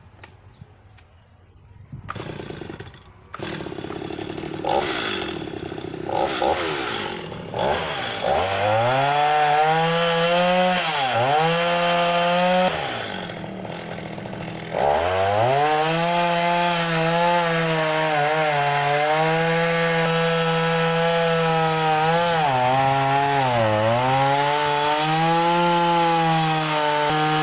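Stihl MS 210 two-stroke chainsaw coming to life about two seconds in, idling with a few short throttle blips, then running at full throttle as it cuts into a felled tree trunk. Its pitch sags each time the chain bites into the wood. It falls back to idle briefly, then revs up and cuts again.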